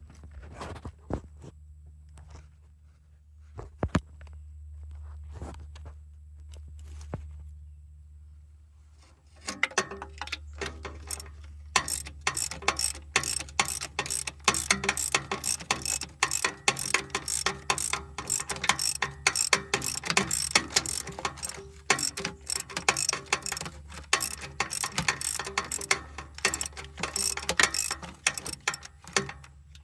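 Ratchet wrench clicking as the 15 mm starter mounting bolts are backed out. A few scattered clicks and knocks come first, then fast continuous ratchet clicking from about ten seconds in, over a low steady hum.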